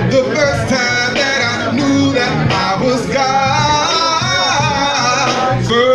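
Music: a man singing into a handheld microphone over backing music with a repeating low beat.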